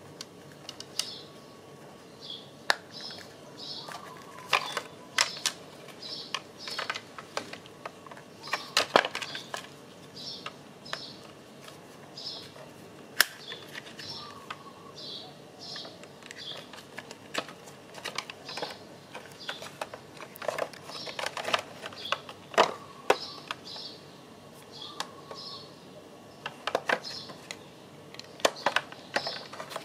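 Irregular sharp plastic clicks and taps from a Hyundai Veloster folding side-mirror motor unit being handled and seated into the mirror housing.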